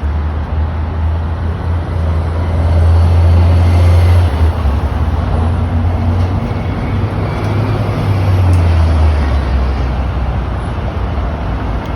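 Motor-vehicle road noise: a steady low rumble under a broad hiss, swelling about three to four seconds in and again around eight seconds.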